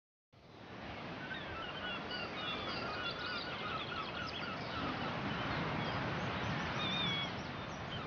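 Birds chirping in quick series of short notes over a steady rushing nature ambience, coming in abruptly about a third of a second in.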